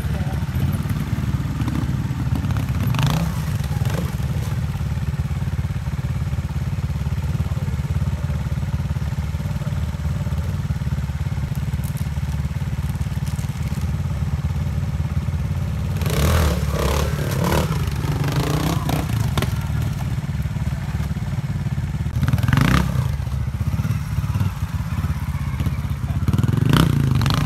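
Trials motorcycle engine running steadily at low revs, with several bursts of clatter and knocks as the bike works over the rocks, the longest run of them a little past the middle.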